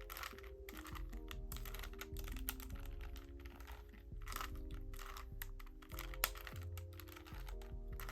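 A plastic Rubik's Cube being turned again and again, its layers clicking and clacking in quick irregular runs, over background music with held notes.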